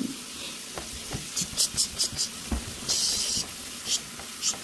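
A cat's claws scratching at a hard surface edge. There is a quick run of short scratches, then a longer scrape about three seconds in, then a couple more scratches, with a few soft knocks.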